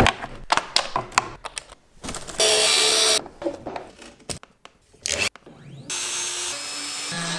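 Sharp clicks and knocks, then a Dremel rotary tool spinning briefly at high speed. From about six seconds in, the Dremel-driven CNC end mill cuts into MDF: a steady high-pitched noise with held tones that shift in pitch.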